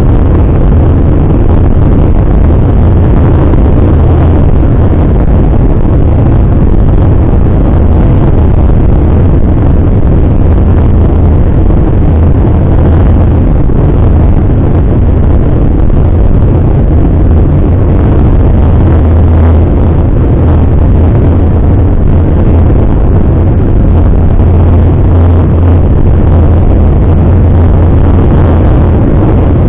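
Steady, loud low drone of a car's engine and tyres heard from inside the cabin while cruising at road speed, with no change in pace.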